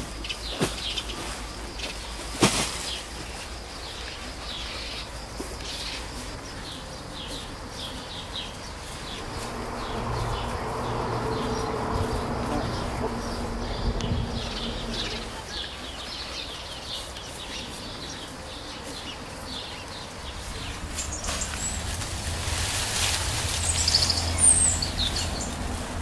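Insects chirping in quick repeated pulses, with rustling of woven sacks and dry corn leaves and a sharp knock a couple of seconds in. A bird chirps a few times near the end.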